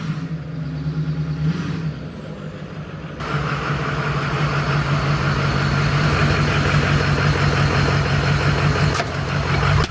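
Plow truck's engine running steadily, growing louder about three seconds in and staying up, as if under more throttle.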